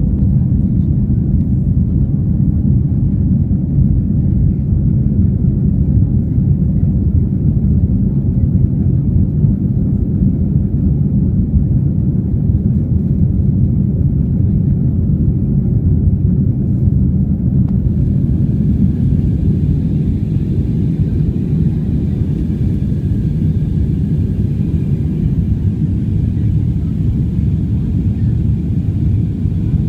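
Steady low rumble inside the cabin of an Airbus A320neo climbing after takeoff: engine and airflow noise. About two-thirds of the way through, a faint higher hiss joins it.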